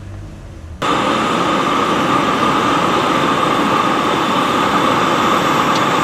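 A steady engine running, starting suddenly about a second in and holding level with no change in speed.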